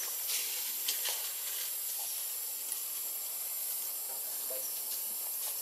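Steady high-pitched hiss of tropical forest insects droning, with a few faint ticks about a second in.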